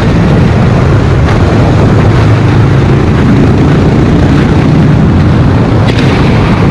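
Suzuki DR 650's single-cylinder engine running steadily and loudly through an aftermarket exhaust, with a deep, even exhaust note.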